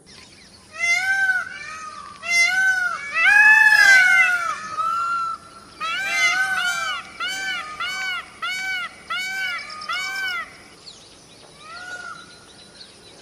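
Indian peafowl (peacock) calling: a few loud drawn-out calls, the longest and loudest about four seconds in, followed by a run of about nine short arched calls, roughly two a second, and a fainter call near the end.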